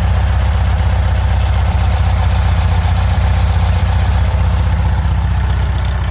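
Volkswagen Super Beetle's air-cooled flat-four engine idling steadily with its exhaust leak freshly repaired.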